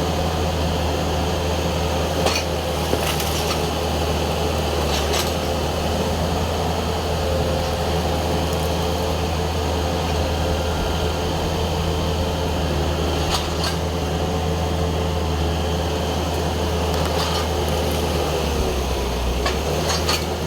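Kubota M7060 tractor's diesel engine running steadily, with a few sharp knocks from the machine's work about two, three, five, thirteen, seventeen and twenty seconds in.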